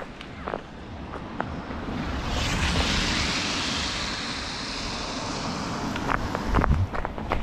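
A rushing hiss swells about two seconds in, holds, and fades out after about six seconds. A runner's footsteps are sparse before it and pick up again near the end.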